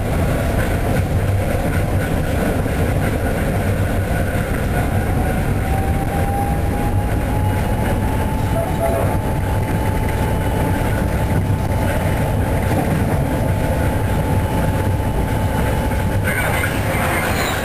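Passenger train rolling steadily on the track, heard from on board: a steady rumble of wheels on rail with a faint, thin squeal held through most of it. Near the end the sound turns brighter and sharper as the train passes the locomotives of a standing container freight train on the adjacent track.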